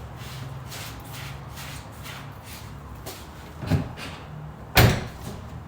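Tesla Model S door handle and latch being worked: faint ticking over a low hum, then a soft thud, and a sharp clack about five seconds in, the loudest sound.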